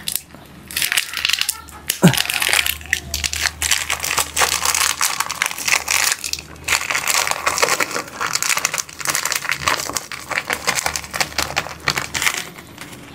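Hands mixing and kneading a homemade catfish bait mash, a dense irregular run of crunching, squishing and crinkling noises.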